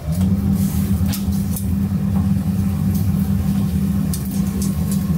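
Extractor hood fan switching on and running with a steady low hum, drawing off the grill smoke. Over it come a few short crackles and clicks as pork chops are laid on the hot grate with tongs.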